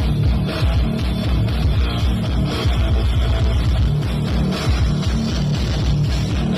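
Loud music with heavy, pulsing bass played through a big sound-system rig with four subwoofers, in a sound-system battle.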